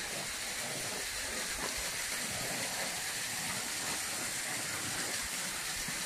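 Steady rushing hiss of a waterfall's falling water.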